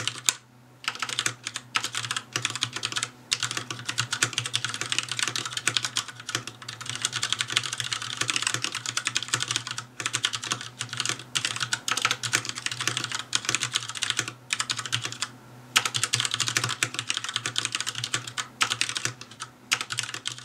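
Fast, steady typing on a Filco Majestouch 2 tenkeyless mechanical keyboard with Cherry MX Black linear switches: a dense stream of key clacks with a few brief pauses.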